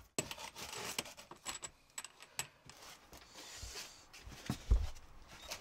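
Handling of a foam-insulated copper refrigerant line set as it is uncoiled: scattered clicks and rustling, with one dull thump about three-quarters of the way in.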